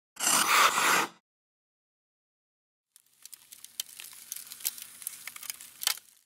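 Intro sound effects for a shattering-ice animation: a burst of noise about a second long, then, after a two-second gap, about three seconds of crackling with sharp clicks.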